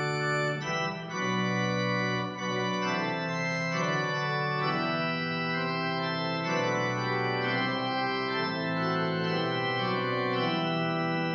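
Church organ playing a slow run of sustained chords.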